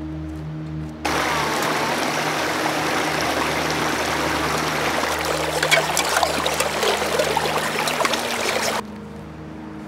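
Shallow mountain stream trickling and gurgling over rocks, heard close, with sharper splashes in the second half as a hand dips a container into the water to collect it. The water sound starts suddenly about a second in and cuts off shortly before the end.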